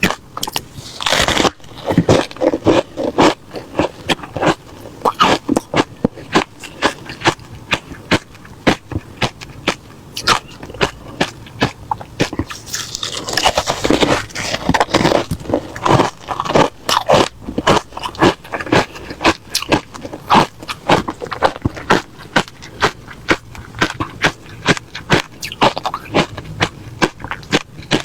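Close-up crunching of refrozen crushed ice being bitten and chewed, a rapid irregular run of sharp crunches with a scraping, hissy stretch about halfway through.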